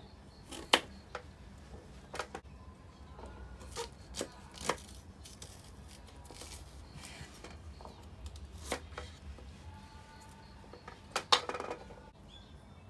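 Knife cutting asparagus on a wooden cutting board: irregular sharp knocks of the blade striking the board, the loudest about a second in and near the end.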